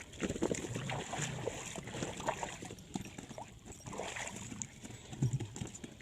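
Puppies splashing and sloshing through shallow pond water in irregular bursts.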